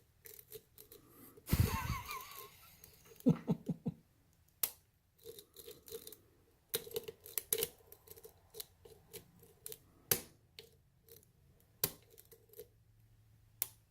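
Lock pick and tension wrench working the pins of a challenge lock during single-pin picking: scattered small metallic clicks and ticks, irregular, with a few sharper clicks. A brief louder rustling sound about two seconds in.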